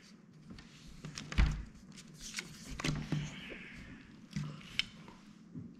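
Trading cards being laid down and slid on a wooden tabletop: scattered light taps and rustles, with a soft thump about a second and a half in.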